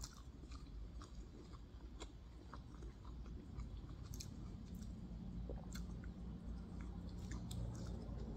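A person chewing a mouthful of steamed pork momo (dumpling), close to the microphone, with many small scattered clicks from the mouth over a low steady hum.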